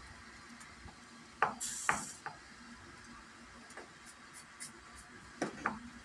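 A wooden twig whisk (a kudal cut from rhododendron) spun between the palms in a stainless steel pot of nettle soup, beating the nettles apart; its sticks rattle and clack against the pot, with louder clusters of clacks about one and a half seconds in and again near the end.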